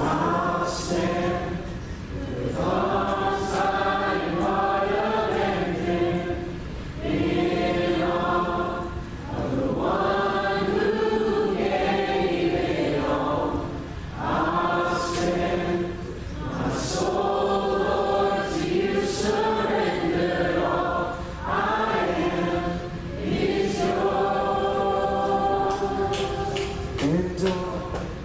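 A congregation singing a slow worship song together in phrases of a few seconds, with brief pauses for breath between lines.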